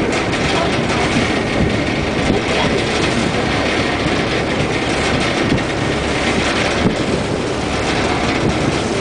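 A ferry boat's engine running steadily under way, a loud, even noise with no breaks.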